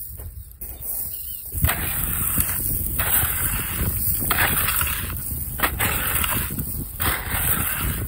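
Repeated rough crunching scrapes in beach sand or gravel, about one every second and a bit, each lasting most of a second, over a low rumble.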